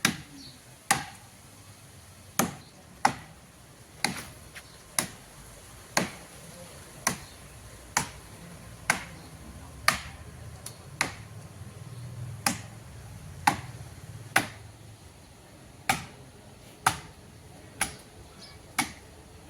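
Steady chopping into wood with a hand-held blade, about nineteen sharp blows at roughly one a second.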